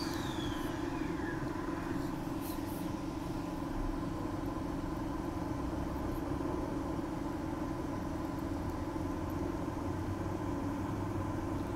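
Steady electrical hum of a Transperth A-series electric multiple-unit train heard from inside as it pulls slowly away from a station, with a faint falling tone in the first second.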